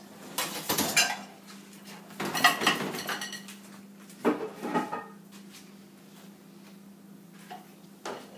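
A paintbrush clinking and tapping against a shallow metal water dish and a watercolour paint tray, in three short bouts in the first half, then quieter. A steady low electrical hum sits underneath.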